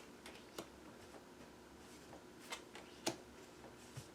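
Tarot cards being flipped and laid down one at a time: a few faint, short clicks and slaps of card stock.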